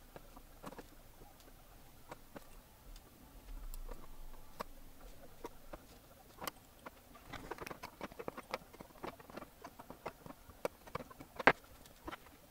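Scattered small clicks and taps from hands, a soldering iron and a circuit board being handled on a benchtop. The clicks come in a quick flurry about two-thirds of the way through, and one sharper click comes near the end.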